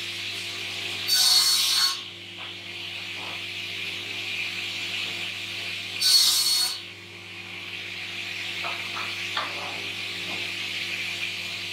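Sliding panel saw running steadily, its blade cutting through a timber board twice. Each cut is a louder burst under a second long, and the two are about five seconds apart.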